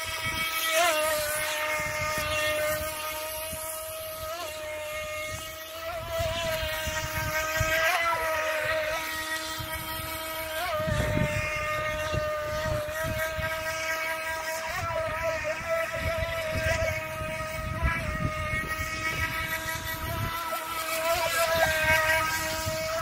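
Small electric motor of a UDI radio-controlled speedboat running, a steady high whine with small surges in pitch, over a low rumble that comes and goes.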